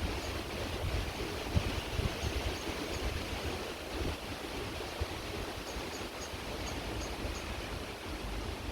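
Creek water running steadily, with a low, uneven wind rumble. A short series of faint, high, evenly spaced chirps comes about two seconds in and again in the second half.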